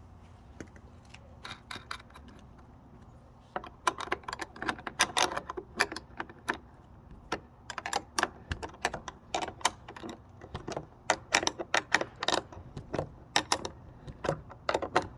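Metal wrenches clinking against a nut and bolt on a windshield bracket, a run of irregular light clicks that starts a few seconds in.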